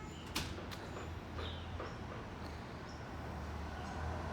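Low steady rumble of street traffic, with two sharp clicks about half a second in and a few faint high chirps.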